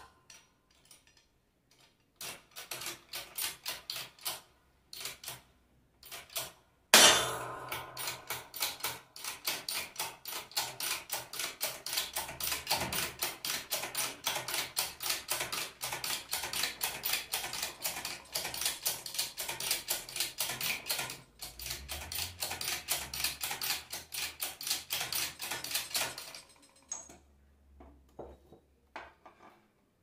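Rapid light metal-on-metal tapping. It comes in a few short bursts at first, then starts with a sharp, louder strike about seven seconds in and keeps up a steady rhythm of about four or five strikes a second for nearly twenty seconds before stopping near the end.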